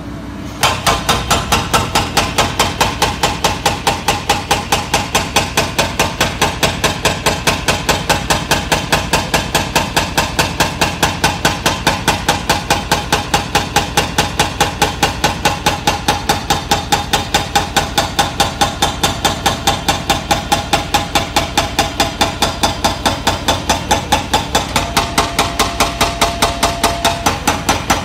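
Excavator-mounted hydraulic breaker hammering concrete rubble, a rapid even train of metallic blows at about three a second that starts about half a second in.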